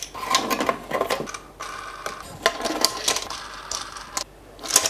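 Small steel bolts and a plastic featherboard being handled and fitted together by hand: irregular clicks, taps and light metallic rattles.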